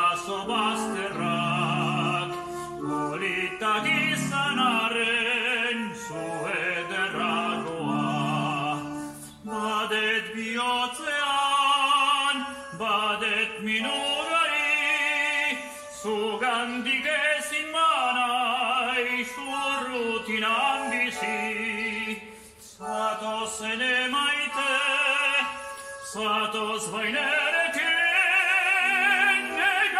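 A man singing in an operatic style with wide vibrato, phrases broken by short breaths, over a steady instrumental accompaniment.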